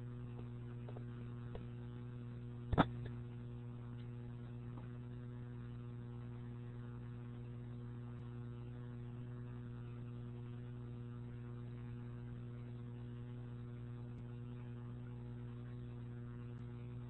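Steady electrical mains hum on the recording line, with a single short click about three seconds in.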